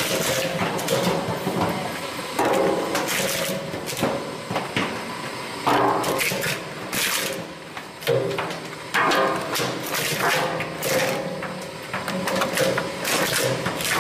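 An industrial crushing machine working through material: a straining motor drone comes and goes while the material gives way in irregular cracks and snaps.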